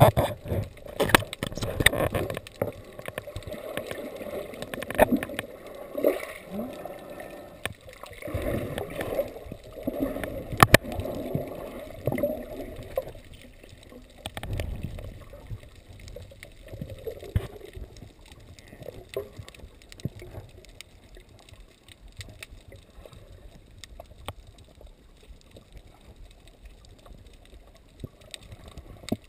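Muffled underwater sound heard through a GoPro's waterproof housing: water gurgling and sloshing around the camera, with scattered sharp clicks and knocks. It is louder and busier for about the first thirteen seconds, then settles quieter.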